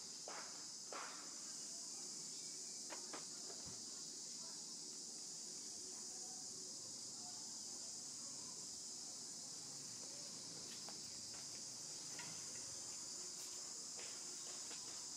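Steady high-pitched insect chorus droning without a break, with a few faint clicks in the first few seconds.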